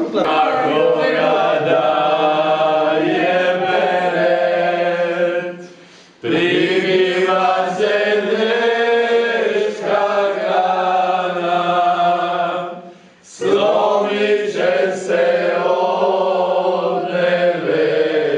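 A small group singing a song unaccompanied, several voices together in long held phrases, with two short breaths between phrases, about six and thirteen seconds in.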